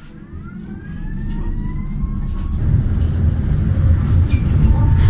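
Tatra tram accelerating, heard from inside the passenger saloon: the electric traction drive gives a rising whine, and the low rumble of the wheels on the rails grows steadily louder.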